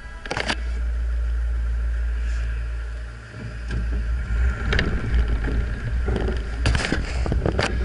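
Steady low rumble of an idling off-road vehicle engine close to the microphone, mixed with wind rumble. The rumble dips briefly about three seconds in, and a few sharp knocks come through, one about half a second in and a pair near the end.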